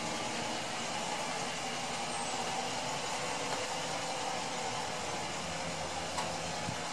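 Steady running hum of an idling Dodge Durango police SUV, with a single brief click about six seconds in.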